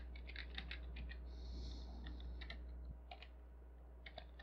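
Typing on a computer keyboard: quick runs of soft key clicks, faint, over a low steady hum.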